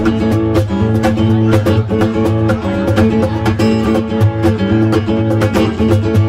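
Live country music, an instrumental stretch between sung lines: acoustic guitar playing with a cajón keeping a steady beat.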